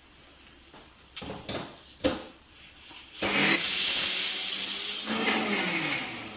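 Electric mixer grinder: a few clicks and knocks as the steel jar is set on the base, then the motor runs for about two and a half seconds, grinding grated coconut with chili a little finer, and winds down with a falling pitch when switched off.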